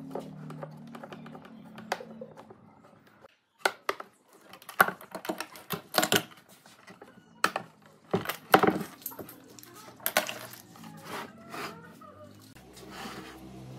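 Ratchet strap band clamp being released and pulled off a wooden box: a series of sharp plastic clicks and clatters from the ratchet and corner pieces, with the webbing strap rustling.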